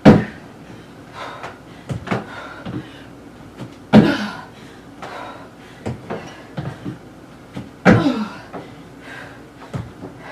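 Feet landing on a plyo box during box jumps: a loud thud about every four seconds, each followed by a hard breath out, with softer knocks of stepping back down in between.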